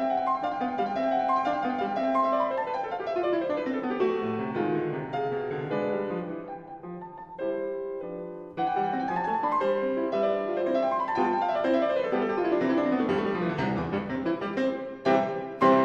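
Background piano music: quick runs of notes sweeping down and up, with a short pause about halfway through.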